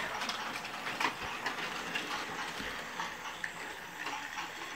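Battery-powered plastic toy train running along plastic track: a steady small-motor whir with a few light clicks.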